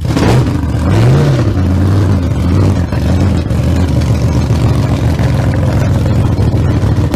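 Loud engine running, revving up and back down briefly about a second in, then holding at a steady rumble.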